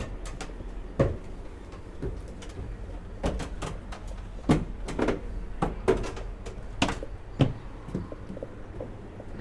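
A series of irregular knocks and clunks, about eight of them spread over several seconds, like hard objects being handled and set down.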